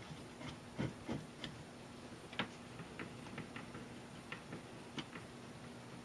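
Irregular light clicks and taps from handling the mini metal lathe and its HDPE workpiece, about a dozen spread over the few seconds, over a faint steady hum.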